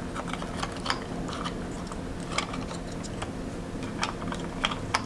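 Small, irregular clicks and taps of a 1/6 scale toy M2 Browning's miniature ammunition belt being handled and pushed into its feed tray, with a few sharper clicks about a second in, midway and near the end.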